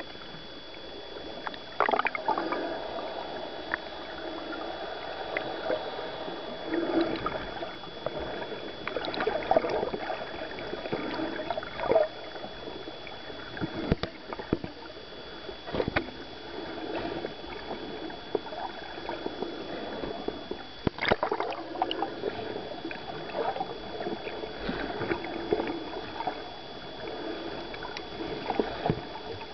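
Muffled underwater water noise around a submerged camera: swirling, gurgling water with scattered sharp clicks and knocks. A thin steady high whine runs through it and drops out for several seconds partway through.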